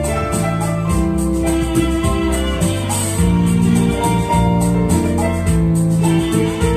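Electronic arranger keyboard playing a melody in sustained organ-like tones over a bass line and light drum accompaniment.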